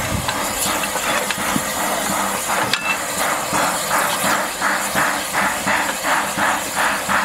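Z152 steam crane hissing steam steadily, its engine starting a regular chuffing of about three beats a second about halfway through. A single sharp metal clink of a track bar on rail a little before the middle.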